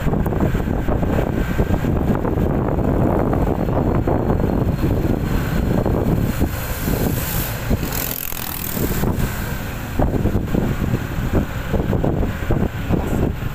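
Riding noise from a motorcycle at low speed: wind rumbling on the microphone over the engine and road noise, with a brief higher hiss about seven seconds in.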